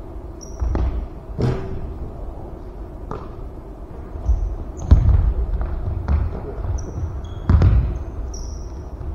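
A basketball thudding irregularly on a wooden gym floor, with short high squeaks of sneakers on the hardwood between the bounces.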